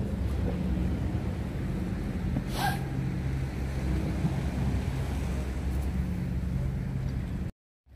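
Wind rumbling on the microphone by the sea, a steady low noise, with a brief hiss about two and a half seconds in. The sound cuts off suddenly near the end.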